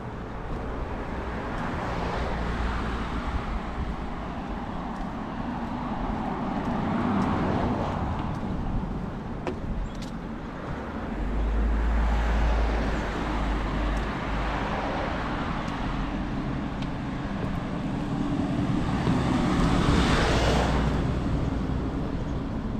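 Road traffic: about four cars pass one after another, each a rush of engine and tyre noise that swells and fades, the last and loudest near the end.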